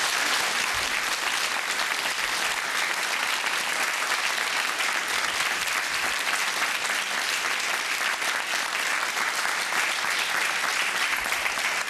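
Studio audience applauding steadily, a dense, even clapping from a large crowd.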